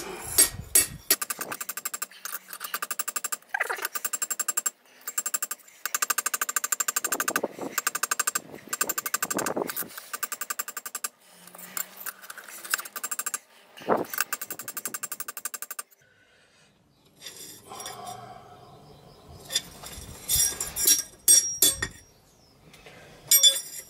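Hammer blows on a steel railroad-spike knife blade laid on a railway-track anvil, ringing and metallic, in quick runs with short pauses between them. The blade is being cold forged flat, worked after it has stopped glowing. The hammering drops off about two thirds of the way in, with a few scattered blows near the end.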